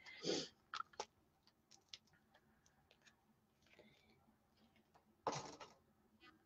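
Faint clicks and light taps of small objects being handled over a quiet room, with a short, louder rustle a little past five seconds in.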